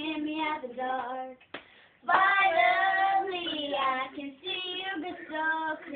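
A young girl singing without accompaniment. She breaks off briefly about a second and a half in, then holds a long note.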